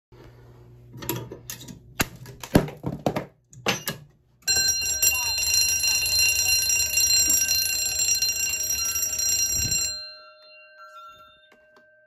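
A string of sharp knocks and clatter from the GE 270-SPOF break-glass pull station as its glass is struck and the station is pulled. Then an Edwards Durabel fire alarm bell rings continuously and loudly for about five seconds and cuts off suddenly.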